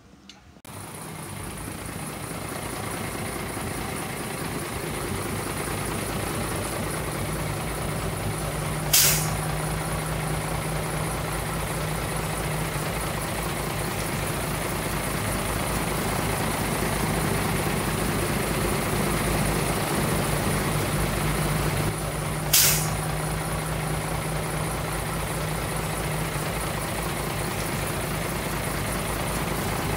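Dump truck's diesel engine running steadily, with two short, sharp air-brake hisses about thirteen seconds apart.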